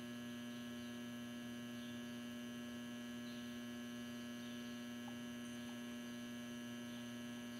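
Faint, steady electrical hum from the battery charger powering the HHO electrolysis setup: one strong low tone with a ladder of higher overtones, unchanging throughout.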